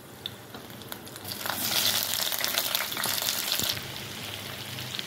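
Sliced ivy gourd (kundru) going into hot mustard oil tempered with cumin, fenugreek and green chillies. A light crackle gives way about a second and a half in to a loud sizzling hiss, which eases after a couple of seconds to a quieter sizzle with scattered crackles.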